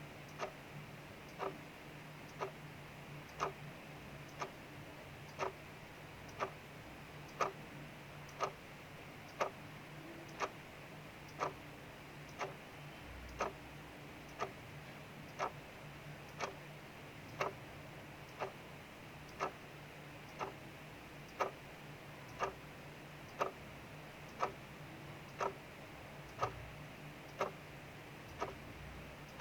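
Clock ticking steadily about once a second, over a soft, steady hiss of rain falling outside.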